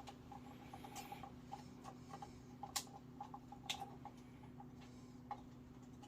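Faint, scattered small clicks and taps of small parts and tools being handled during the fitting of an immersion heater thermostat, with a few sharper clicks, over a steady low hum.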